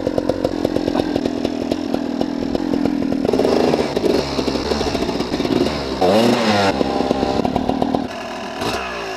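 Enduro dirt bike engine revving hard and unevenly, with a quick rise and fall in pitch about six seconds in, then settling to a lower, steadier run near the end.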